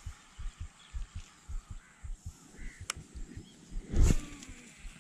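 A baitcasting rod and reel being cast about four seconds in: a sudden swish with the spool whirring down in pitch as the line pays out. Under it, dull low thumps repeat about three times a second.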